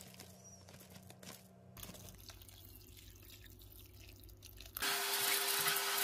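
Water tap turned on about five seconds in, running hard after a quiet low hum.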